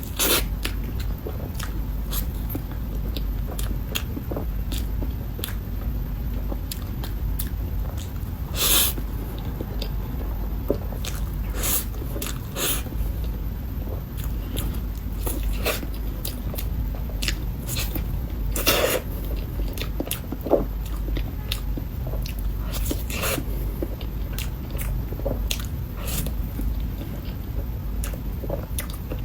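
Close-miked eating of a soft matcha mille crepe cake: wet chewing and small mouth clicks that keep on, with two longer, louder sounds about a third and two thirds of the way through.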